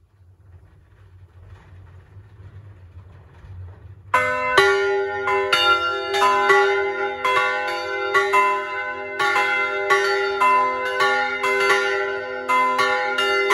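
Three church bells swinging and ringing together: a 130 kg bronze bell tuned to f'', a 200 kg cast-steel bell tuned to f-sharp'' and a 290 kg bronze bell tuned to c''. After a low hum while they swing up, the clappers start striking about four seconds in, in an irregular overlapping pattern of roughly two strikes a second, each stroke ringing on into the next.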